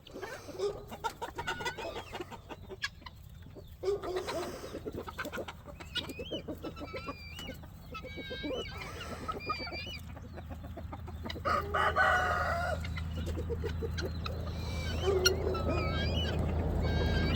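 A flock of chickens clucking and calling, with a rooster crowing about twelve seconds in. A low steady hum underneath grows louder near the end.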